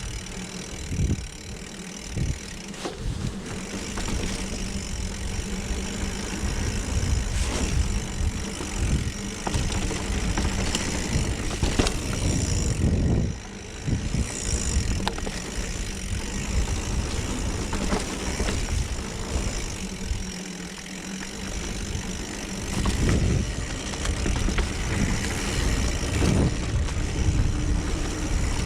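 Mountain bike being ridden along a dirt trail: a steady rumble of tyres and wind on the microphone, with scattered knocks and rattles over bumps.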